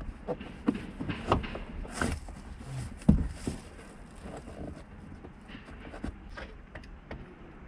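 Irregular clicks, knocks and rustling of plastic car interior trim and cable being pried and pulled by hand at the top of a tailgate opening, with the sharpest knock about three seconds in.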